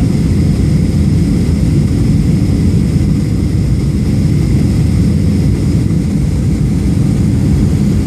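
Steady cabin noise of a Southwest Boeing 737 on its descent, heard from a window seat: an even, deep rush of jet engines and airflow with a faint high whine.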